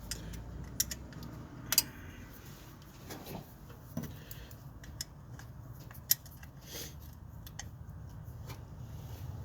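Scattered sharp metallic clicks and clinks of a hand wrench working the battery-wire terminal nut on a truck alternator, three of them loud, over a low steady hum.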